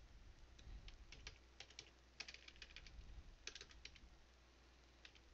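Faint keystrokes on a computer keyboard, typing in short irregular runs of clicks.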